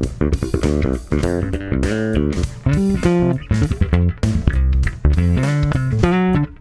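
Fender Jaguar Bass electric bass guitar, with two single-coil Jazz Bass pickups, played as a run of plucked notes, each with a sharp attack and a brief ring, separated by short gaps.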